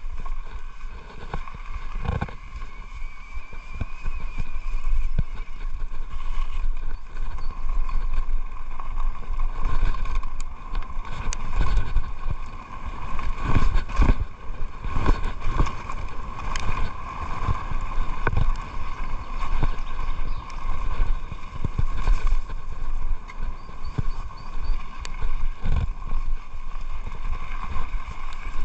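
Electric mountain bike riding fast down a rough dirt trail: a continuous low rumble of tyres and air over the camera, with frequent knocks and rattles as the bike hits bumps, and a faint steady whine underneath.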